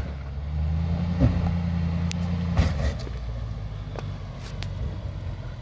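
Range Rover Sport's engine running at low revs as the SUV crawls over loose rock, louder for the first few seconds and then easing off. A few sharp knocks of stones under the tyres sound along the way.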